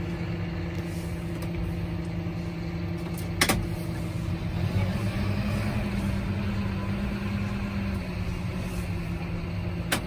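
John Deere 6175R's six-cylinder diesel engine running steadily, heard from inside the tractor cab. Its note rises slightly about halfway through and settles back down near the end. A single sharp click comes about a third of the way in.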